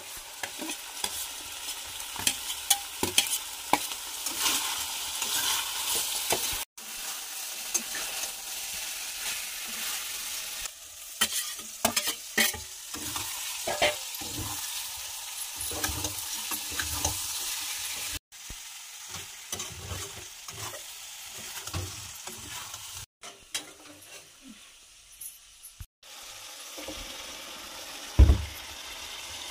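Chicken curry sizzling and frying in a metal wok on a gas stove while a flat metal spatula scrapes and clacks against the pan as it is stirred. The sizzle drops out briefly a few times, and there is one loud knock near the end.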